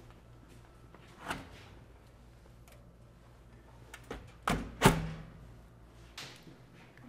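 Door of a commercial convection oven shut with two loud thunks about half a second apart, a little past halfway, after a few faint clicks of the door being worked.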